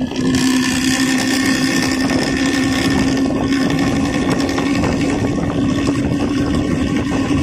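Bus with a snoring ('ngorok') exhaust running close by: a loud, steady drone holding one pitch over a rumble. It comes in sharply at the start and fades just after the end.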